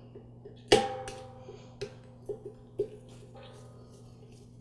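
Screwdriver clinking against the metal of an air compressor's pressure switch while the ground wire's terminal screw is worked loose: one sharp metallic clink with a short ring, then three lighter taps about half a second apart, and faint scratching.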